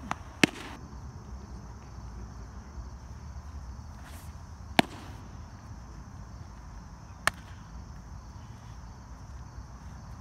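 A pitched baseball pops into the catcher's leather mitt about half a second in, followed by two more sharp smacks of ball into glove later on. Crickets chirp steadily in the background.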